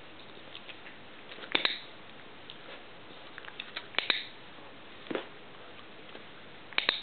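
A dog-training clicker sounding three times, each a sharp double click: about a second and a half in, about four seconds in, and near the end. A soft thump a little after five seconds.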